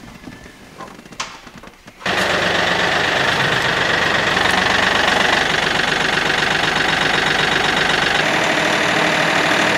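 Kioti NX4510 tractor's diesel engine idling steadily, cutting in abruptly about two seconds in after a couple of quiet seconds with a few faint clicks.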